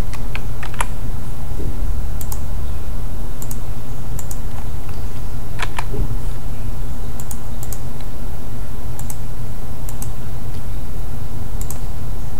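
Scattered computer mouse clicks, often in quick pairs of press and release, over a steady low electrical hum.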